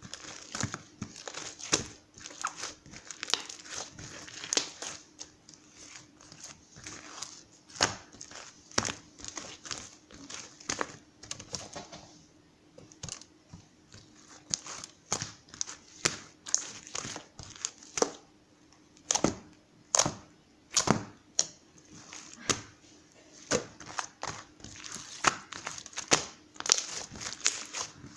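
Crinkling and crackling of something being handled, with many sharp clicks and taps, easing off briefly about halfway through.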